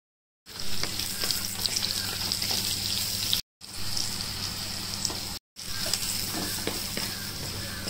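Onion and capsicum pieces with spice powder sizzling as they fry in oil in a clay pot, with a wooden spatula stirring and scraping through them. The sizzle starts about half a second in and cuts out twice for a moment.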